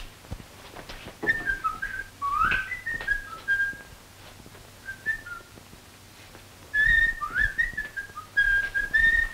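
Someone whistling a tune by mouth in short phrases of gliding notes. The whistling breaks off for a few seconds in the middle, then picks up again near the end.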